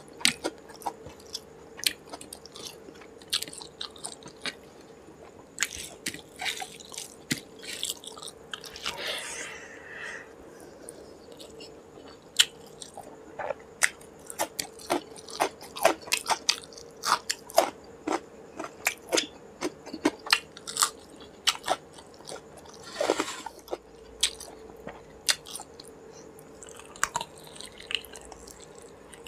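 Close-miked chewing of rice and curry eaten by hand: many sharp, wet mouth clicks and smacks, with a couple of longer breathy sucking sounds.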